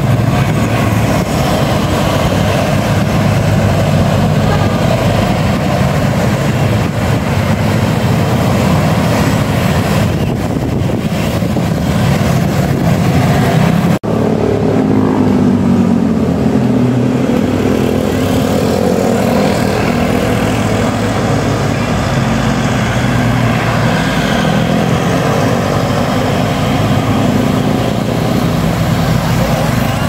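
Road traffic passing close by: bus and motorcycle engines running steadily. After a brief break about halfway through, an engine's pitch rises and falls.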